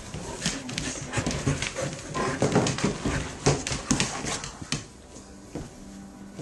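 Golden retrievers moving about close up, one wearing a plastic cone: a run of sharp clicks and knocks from claws on a tile floor and the cone bumping. The clicks thin out and go quiet after about five seconds.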